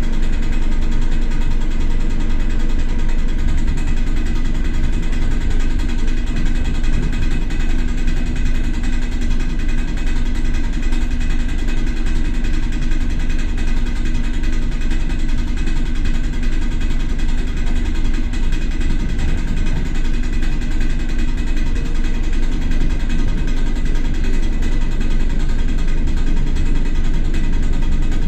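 ER2 electric multiple unit running along the line, heard from inside a carriage: a steady, loud rumble with a constant hum over it.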